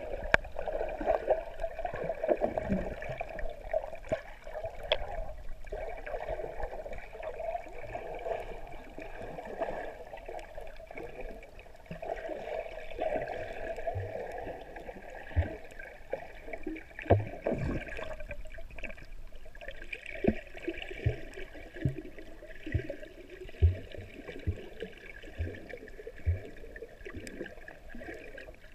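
Muffled gurgling and sloshing of water around an underwater camera, with scattered short low knocks, more of them in the second half.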